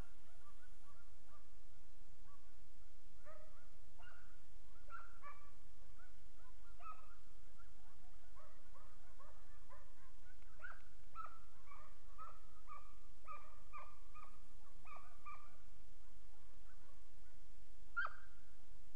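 Hunting dogs baying on a wild boar: a long, rapid run of short, high, falling yelps and barks, thickest through the middle, with one sharper yelp near the end.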